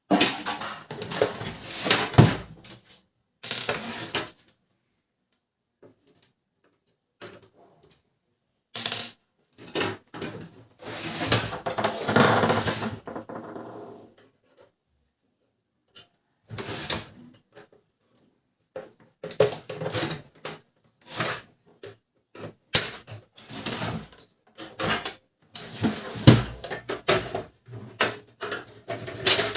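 Plastic housing of a Canon LBP 2900 laser printer being taken apart by hand: irregular clicks, knocks and scrapes of plastic parts, broken by several quiet gaps.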